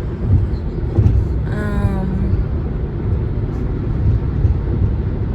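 Car cabin noise while driving: a steady low rumble of road and engine.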